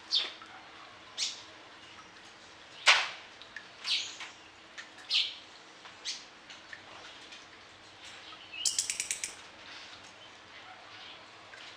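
Orange-headed thrush singing: short, sharp, high notes spaced about a second apart, then a quick rattling series of about eight notes about three-quarters of the way through.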